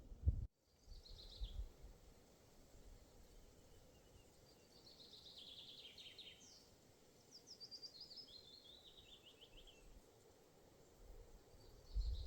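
A small songbird singing short, high, descending trilled phrases, about four times with gaps between them. A low rumble briefly at the start and again near the end, like wind on the microphone.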